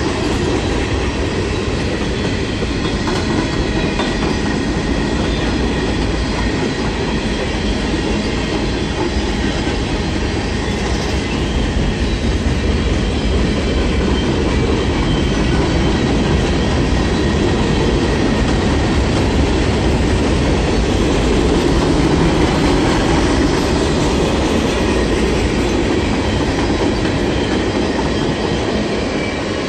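A train rolling past, its railroad cars' wheels clattering over the rail joints in a loud, steady rumble.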